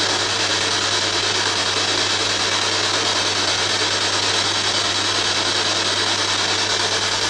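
Ghost box (spirit box) radio sweeping through stations, giving out a continuous rush of radio static over a steady low hum.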